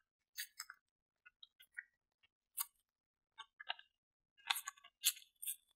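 Glossy magazine paper being torn by hand in small nibbling rips around the edges of a cut-out picture: a string of short, faint, crackly tears with brief pauses between them.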